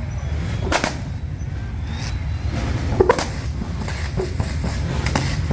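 Quad-turbocharged VL Holden Commodore engine running with a lumpy low rumble, its exhaust letting out a few sharp pops and cracks: about a second in, about three seconds in and near the end.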